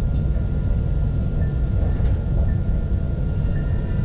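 Alstom Citadis low-floor tram running between stops, heard from on board: a steady low rumble of wheels and running gear on the rails, with a few faint steady high tones over it.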